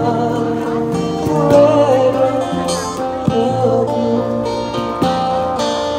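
Street buskers strumming acoustic guitars, with a voice singing a melody over the chords. Strong strums fall about every one and a half to two seconds.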